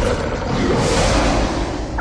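Loud, dense movie-trailer soundtrack: a dramatic music swell mixed with a rushing, whoosh-like noise, dropping away near the end.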